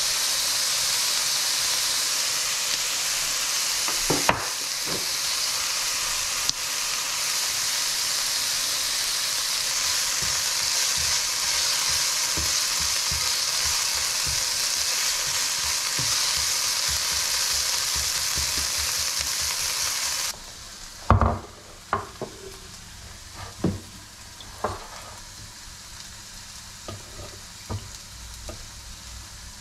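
Ground beef and diced onion sizzling in a frying pan while being stirred with a spatula, with a couple of knocks of the spatula against the pan a few seconds in. The sizzling cuts off suddenly about twenty seconds in, leaving a quiet background with several sharp knocks and clinks.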